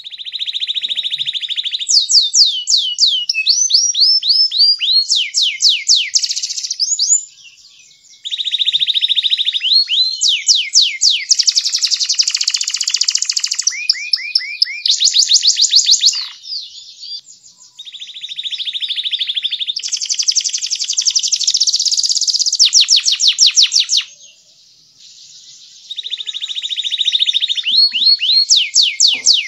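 Domestic canary singing a long song of fast trills and runs of sweeping chirps, broken by two brief pauses: about a quarter of the way through and near the end.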